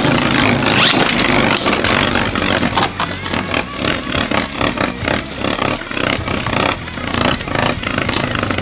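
Two Beyblade spinning tops, one of them 3D-printed, spinning together in a stadium: a loud, steady whirring broken by many quick clicks and clacks as they scrape and knock against each other.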